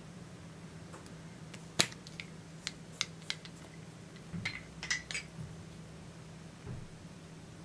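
Small clicks and taps from handling a plastic lipstick tube and small metal tools. One sharp click comes about two seconds in, then a few lighter clicks, and a cluster of metallic ticks with a slight ring around the middle.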